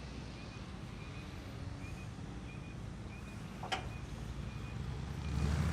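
An engine running steadily at idle as a low hum, with one sharp click about two-thirds of the way through; the engine grows louder near the end.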